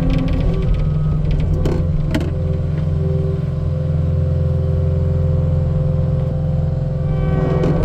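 Skid steer engine running steadily under load with a constant whine above it, while the Quick Claw grapple works logs; two sharp knocks come about two seconds in.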